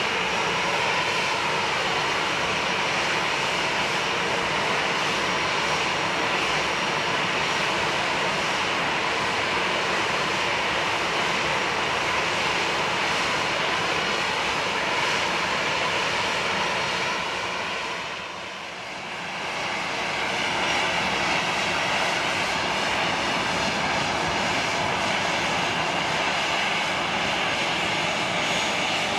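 Boeing 737-800's CFM56-7B turbofan engines running at ground idle: a steady jet whine with several high tones over a rushing noise. The sound fades down briefly about two-thirds of the way through, then comes back.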